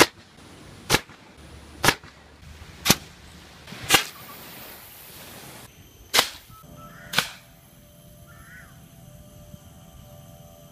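DIY compressed-air bait launcher firing: a series of sharp pops about a second apart, seven in all, with a pause before the last two. The fifth pop trails off in a short hiss.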